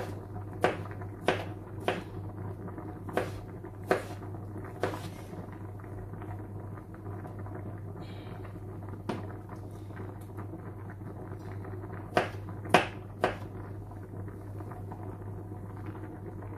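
Knife chopping pickled gherkins on a wooden cutting board: sharp knocks about every two-thirds of a second, a lull in the middle, then a quick run of three knocks about three-quarters of the way through. A steady low hum runs underneath.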